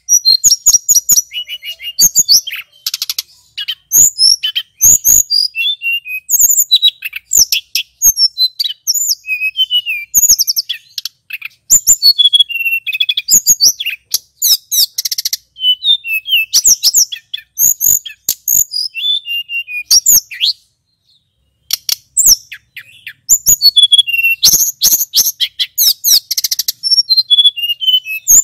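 Male hill blue flycatcher singing a long, fast, varied song of high whistled phrases and rapid trills, with a pause of about a second and a half about two-thirds of the way through.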